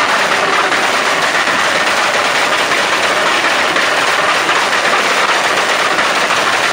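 Turbocharged car engine with turbo flutter: a loud, rapid, continuous chatter from compressor surge.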